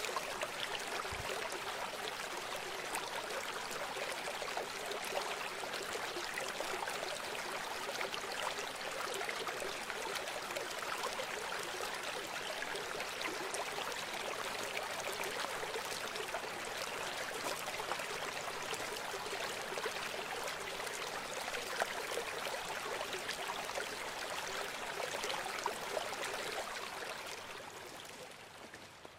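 Steady rush of flowing river water, an even hiss without rhythm, fading out near the end.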